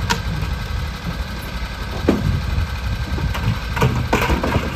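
Utility vehicle engine idling steadily with a low rumble, while shovels scrape into sand and plastic buckets knock a few times, mostly in the last two seconds.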